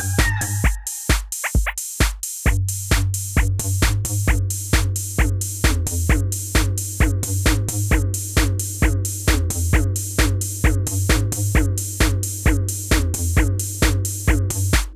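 Electronic background music with a steady drum-machine beat and bass; the bass drops out briefly about a second in, then the beat comes back in full.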